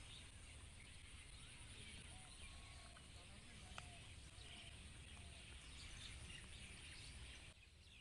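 Faint open-air ambience: a low steady rumble with scattered distant bird chirps, and one sharp click about four seconds in.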